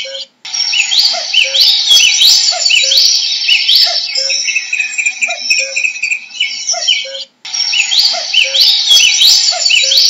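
Common cuckoo calling its low two-note, falling 'cu-coo' over and over, under a louder chorus of other songbirds singing rising whistles and trills. The sound cuts out briefly just after the start and again about seven seconds in, where the same stretch starts again.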